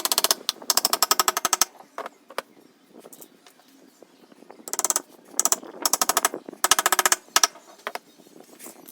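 A hammering power tool running in short bursts of rapid, evenly spaced impacts, about twenty a second. There are two bursts in the first two seconds and several more between about five and seven and a half seconds in, each lasting under a second.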